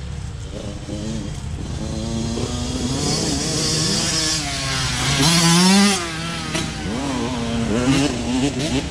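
Honda CR85R 85cc two-stroke dirt bike engine with an FMF exhaust, being ridden, its revs rising and falling repeatedly and loudest about five and a half seconds in.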